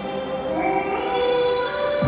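Background music with soft held notes.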